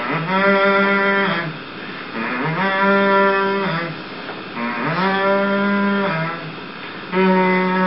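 A man's voice making four long, low, moo-like calls, each over a second long, sliding up in pitch at the start and down at the end, in imitation of a monster's call.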